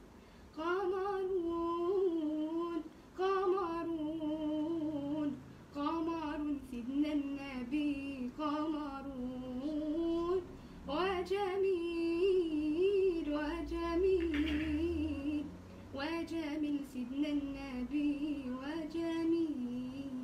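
A girl's solo voice singing an Islamic devotional chant (inshad) unaccompanied, in long melismatic phrases with brief pauses between them.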